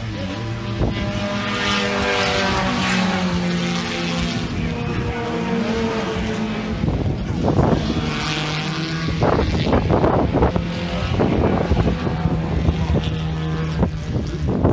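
Race car engines running on the track: one car's note falls gradually over the first few seconds, then a steady engine drone holds through the second half.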